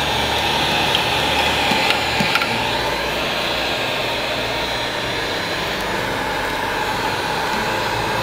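Electric heat gun running steadily, blowing hot air onto window tint film to heat-shrink it to the curved rear glass. A few faint light clicks in the first couple of seconds.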